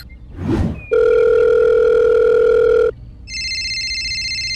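Cartoon sound effects: a short whoosh, then a steady electronic beep held for about two seconds, then a trilling telephone ring starting about three seconds in.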